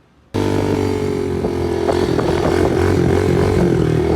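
Dirt bike engine running steadily, cutting in suddenly and loud about a third of a second in.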